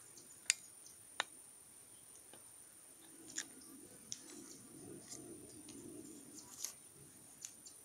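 A few scattered, sharp clicks, about six spread unevenly over several seconds, over a faint background.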